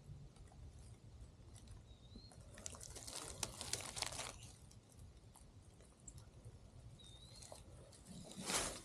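Footsteps crunching through leaf litter on a woodland trail, in two spells: a longer one in the middle and a shorter one near the end. A bird's short whistled call sounds twice.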